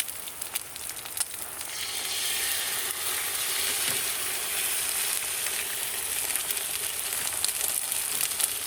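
Food sizzling on a hot camp griddle, with a few crackling clicks at first, then a steady frying hiss that swells up about two seconds in and holds.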